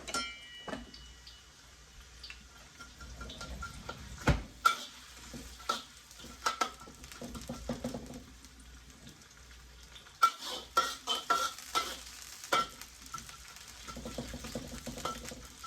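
Mixed vegetables and onion sizzling in oil in a hot wok, with a spatula scraping and clicking against the pan as they are stirred. There is a loud knock about four seconds in and a busy run of scrapes from about ten seconds in.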